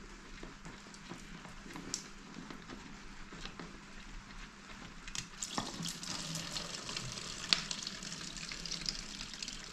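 Engine coolant running out of a motocross engine's water-pump drain screw into a plastic bottle: a steady liquid hiss and splatter with small clicks from the plastic, growing louder about halfway through.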